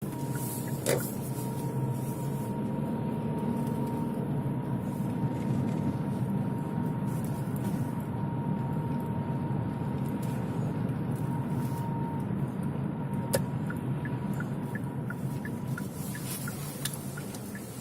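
A steady, thin whistle from a fourth-generation Kia Sportage, holding one pitch over the car's low rumble and fading about twelve seconds in. Two sharp clicks are heard, one near the start and one about thirteen seconds in.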